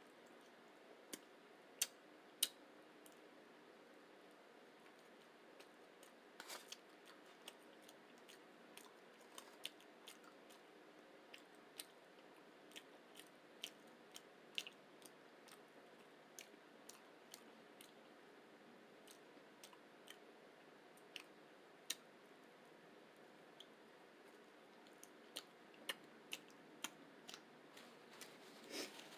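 A person chewing a rice and beans burrito, with irregular sharp mouth clicks and smacks about once or twice a second over a faint hiss.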